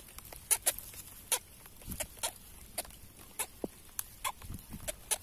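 Irregular sharp clicks and short squeaks, about three a second, as a freshly caught fish is handled and unhooked by hand.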